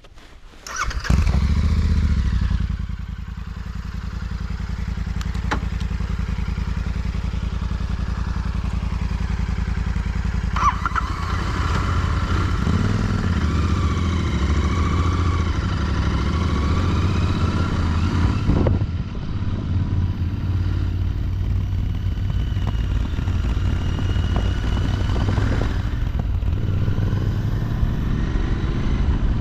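Royal Enfield Continental GT650's 648 cc parallel-twin engine on its stock exhaust starting about a second in. It runs loud for a couple of seconds, then settles to a steady run. From about ten seconds in its pitch rises and falls with changing revs, and there is a sharp click about two-thirds of the way through.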